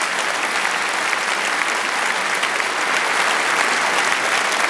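Theatre audience applauding steadily, many hands clapping at once.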